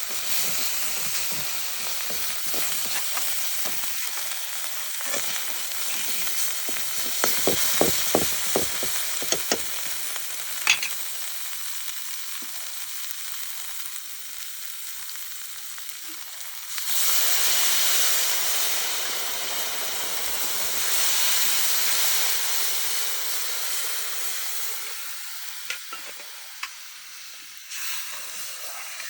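Food frying and sizzling in hot oil, with a utensil stirring and clicking against the pan a few times in the first half. The sizzle gets louder about halfway through, as if more food or liquid has gone into the pan.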